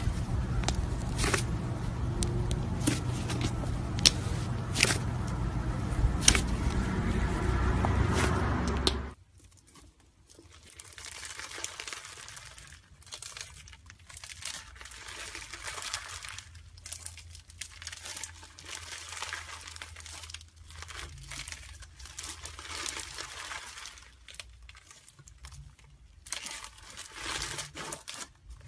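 Hands squeezing a pale green slime, with sharp pops and clicks over a steady low rumble. About nine seconds in, this switches to a white fluffy slime being stretched and pulled apart, which gives a fainter, irregular crinkly crackling.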